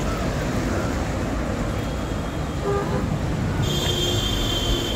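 City road traffic running steadily, with a couple of brief horn beeps near the middle and a shrill high-pitched tone during roughly the last second and a half.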